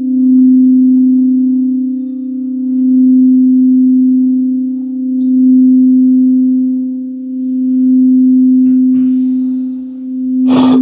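Singing bowl sounding one sustained low tone, its loudness swelling and easing about every two and a half seconds as it is played. A short noise comes near the end.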